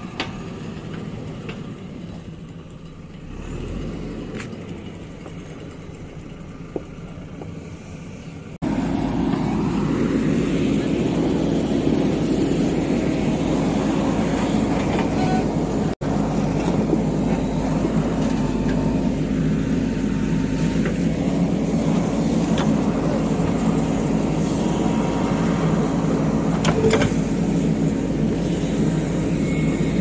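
Diesel engine of a JCB backhoe loader running while it digs, steady and low-pitched; after about eight seconds it jumps abruptly louder and stays steady.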